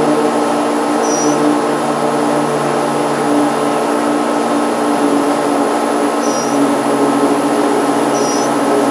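A steady mechanical drone holding several fixed pitches, with three short, high chirps over it: about a second in, and twice near the end.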